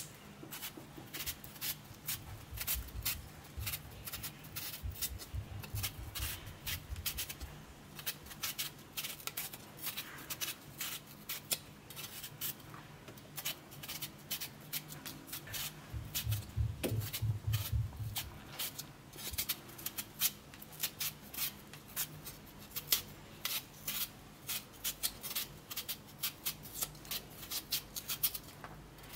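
A raw potato being shaved: many short, crisp scraping strokes of a blade across the potato, a few a second and irregular.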